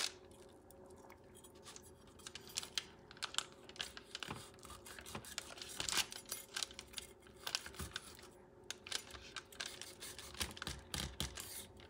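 Faint, irregular small clicks and paper crinkles as a chef's knife scores the sides of a whole red snapper lying on parchment paper. A faint steady hum runs underneath.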